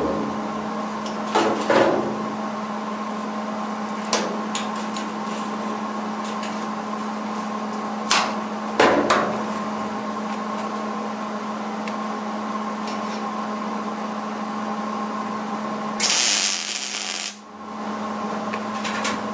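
MIG welder arc crackling for about a second and a half near the end, a plug weld joining the sheet-steel floor to the inner dogleg. Before it, a steady hum with a few scattered metal knocks as the clamp and gun are handled.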